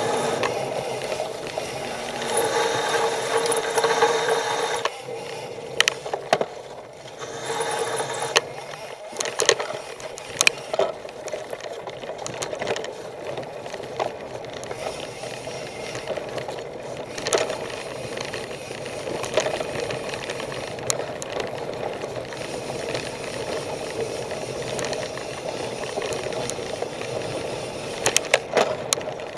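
Mountain bike ridden fast, heard close up: steady tyre and wind noise, with the chain and bike rattling and sharp knocks over bumps on a dirt trail. It is louder for the first five seconds or so, while on tarmac.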